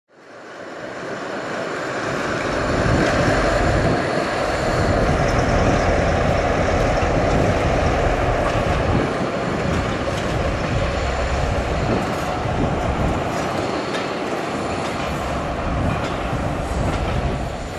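Mainline diesel locomotive running with a steady low drone, fading in over the first two seconds.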